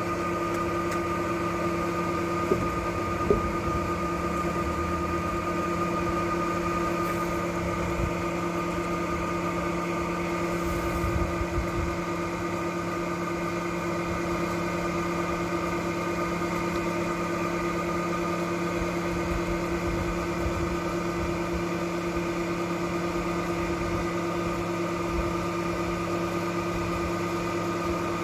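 Electric boat lift motor running with a steady hum, with two light clicks a few seconds in.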